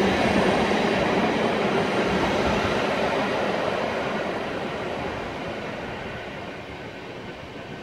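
Intercity passenger coaches rolling over the rails as the train pulls out, the steady wheel-and-rail noise fading gradually as the train moves away.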